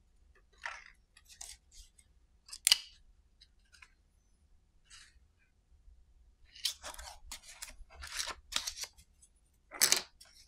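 Small clicks and rustles as a cube LED video light and its magnetic accessories and gels are handled. There is one sharp snap a little under a third of the way in, a busy run of clicks and rustles past the middle, and another sharp click near the end.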